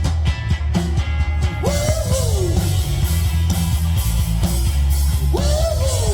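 Rock song with a singing voice over a heavy, steady bass and drum beat; sung phrases rise and fall about two seconds in and again near the end.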